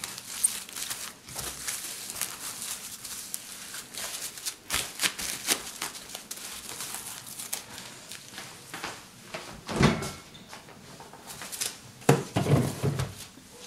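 Plastic cling film crinkling and crackling as hands press and smooth it over a dish packed with coarse salt. A heavy thump about ten seconds in and a few knocks near the end as the dish is set into the refrigerator.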